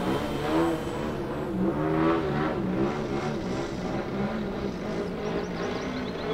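Engine of a radio-controlled aerobatic model plane flying overhead, its pitch repeatedly rising and falling as it is throttled and flown through manoeuvres.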